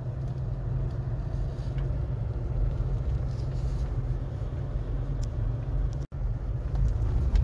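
Steady low rumble of a car's engine and tyres as it drives slowly, heard from inside the cabin. The sound drops out for an instant about six seconds in.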